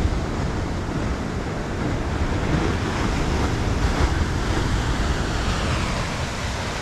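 Ocean surf washing steadily, with wind buffeting the microphone in a low, gusty rumble.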